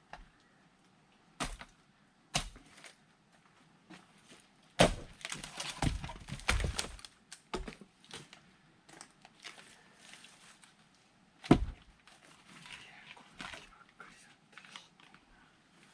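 Axe blows splitting firewood: sharp wooden knocks, one twice in the first few seconds, a loud one about five seconds in followed by about two seconds of rattling knocks and clatter, and the loudest single blow near the end.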